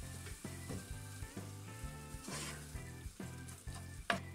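Spinach frying in a nonstick pan, sizzling under background music with a steady beat; a sharp knock near the end.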